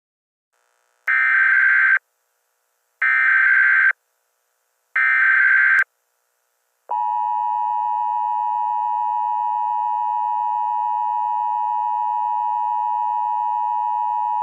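Emergency Alert System tones: three roughly one-second bursts of SAME header data with short gaps between them, then the steady two-tone EAS attention signal starting about seven seconds in.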